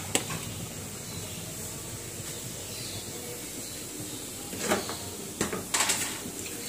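Steady hiss of lit gas stove burners, with a light metal click at the start and a few short scrapes and clatters of cookware on the stove a little past the middle.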